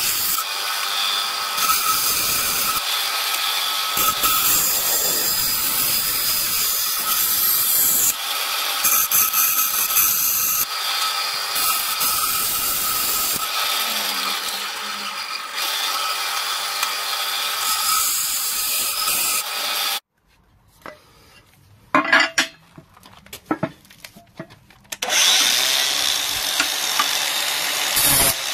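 Benchtop bandsaw with a wood-cutting blade running and cutting 4 mm aluminium plate: a steady motor hum under harsh cutting noise. It stops suddenly about twenty seconds in, a few quiet knocks follow, and an angle grinder runs near the end.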